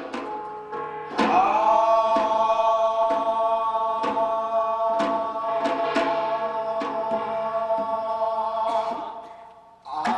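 Korean binari blessing chant: a male voice swoops up into a long held note and sustains it for about eight seconds, fading out near the end, over scattered strokes of Korean percussion.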